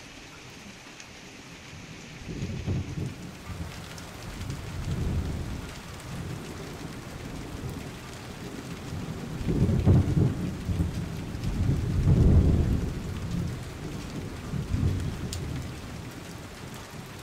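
Steady rain falling, a constant hiss, with low rumbling swells that come and go several times and are loudest about ten and twelve seconds in.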